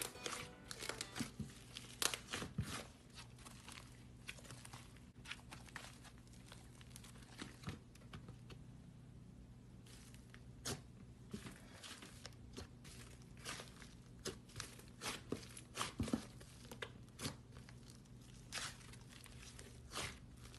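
Hands squeezing, pressing and folding a thick pink fluffy slime, giving faint, irregular sticky crackles and small pops, with a quieter stretch a little before the middle.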